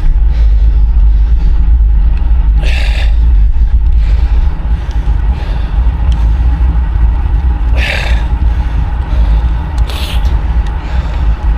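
A cyclist's heavy breathing, with three hard puffs of breath near three seconds, near eight and near ten, over a steady rumble of wind on the microphone of a bike in motion.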